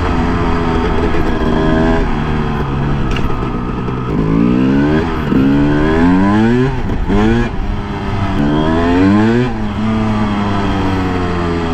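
A 2000 Suzuki RM250 two-stroke motocross engine running under way. It holds a steady note at first, then from about four seconds in the revs climb several times in quick rising sweeps as the throttle is opened and released.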